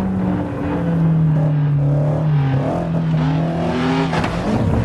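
Race car engine sound, revving with its pitch dipping and rising again, cutting off suddenly near the end.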